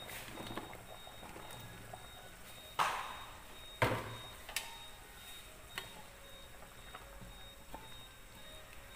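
Potato chunks dropped from a plastic bowl into a pot of boiling broth: two splashing plops about a second apart, followed by a few light clinks as a metal ladle stirs in the aluminium pot.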